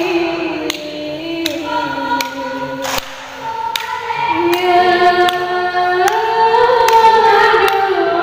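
A woman singing a slow melody into a microphone, holding long notes that step up and down in pitch. A few sharp clicks are heard over the singing.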